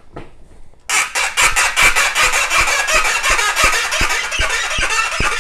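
A corrosion-frozen brass tube on a vintage Slingerland single-piston bugle squealing and grinding as it is twisted loose in a vise: metal scraping over corroded metal in rapid stick-slip chatter. The loud, rough squeal starts about a second in and keeps going.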